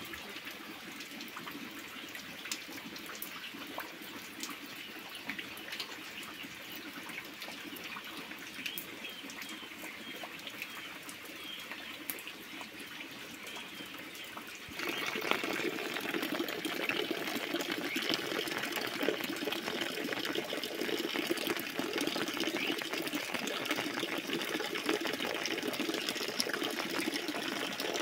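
Rain falling steadily into a puddle, drops splashing on the water surface. About halfway through the sound turns suddenly louder and fuller.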